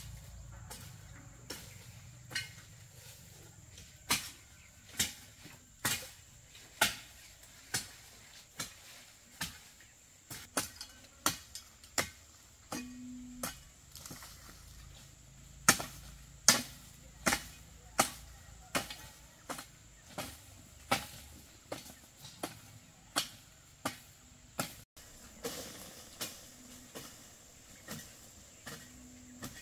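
Series of sharp chopping strikes from a bladed hand tool, about one a second, some harder than others.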